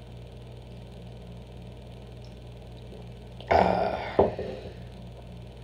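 After a gulp of coffee, a man lets out one loud, short, throaty sound from the mouth about three and a half seconds in, then a sharp click half a second later. A steady low hum runs underneath.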